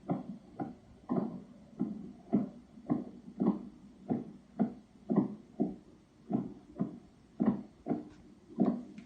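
A steady run of dull thumps or knocks, about two a second, heard through the house at night. The source is unexplained: the same banging or tapping heard in other overnight recordings.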